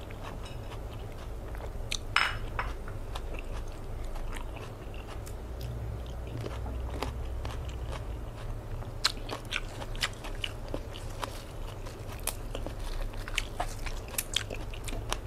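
A person chewing and biting food close to the microphone, with scattered small wet clicks and crunches and a louder crunch about two seconds in.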